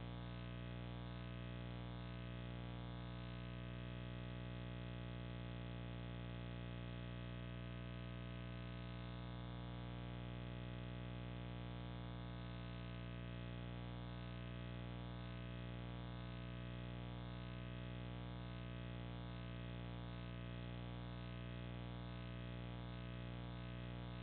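Steady low electrical hum and buzz, unchanging throughout, typical of a trail camera's own recording circuitry; no animal calls stand out.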